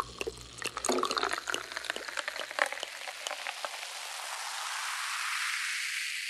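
Dense crackling that gives way to a fizzing hiss, which swells toward the end. The last of the background music fades out in the first few seconds.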